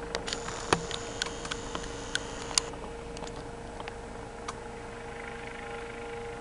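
A run of small sharp clicks and taps, most in the first two and a half seconds and a few more later, over a steady low hum with a faint held tone.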